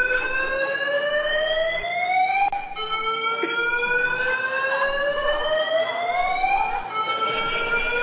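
Building alarm sounding a repeating slow rising whoop: each tone climbs steadily in pitch for about four seconds, then drops back and starts over.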